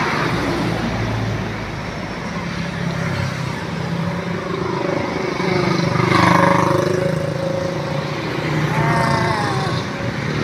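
Road traffic on a busy street: car and motorcycle engines running past steadily, with one vehicle passing close and loud about six seconds in.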